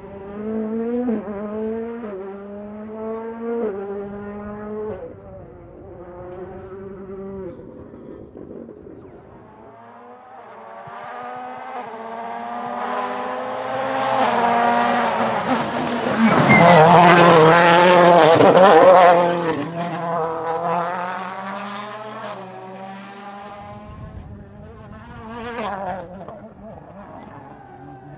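Rally car engine accelerating hard through the gears, its note climbing and dropping with quick upshifts. It fades, then grows again to its loudest about two-thirds through as a car passes close at full throttle, and fades away with one more short burst of revs near the end.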